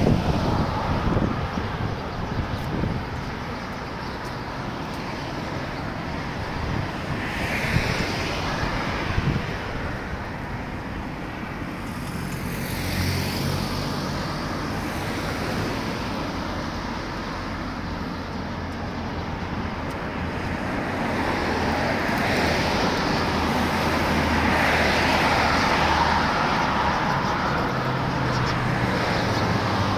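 Road traffic: vehicles passing, with a steady engine hum setting in about twelve seconds in and the traffic growing louder over the last third.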